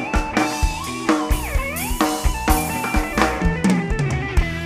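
Band music without singing: a drum kit keeps a steady beat of about four hits a second under bass and a lead line that bends its notes up and down.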